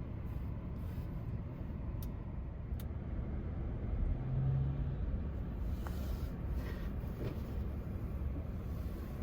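A steady low rumble of background noise, with a couple of faint clicks and a brief low hum about four seconds in.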